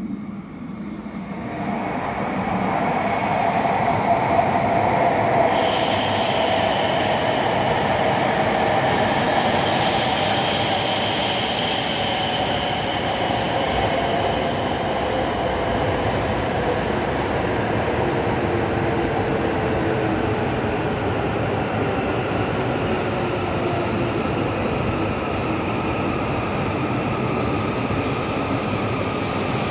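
Tohoku Shinkansen bullet train pulling into the platform and slowing to a stop. It gets louder over the first few seconds, with a high squeal between about 5 and 13 seconds in and a whine that falls in pitch as the train slows.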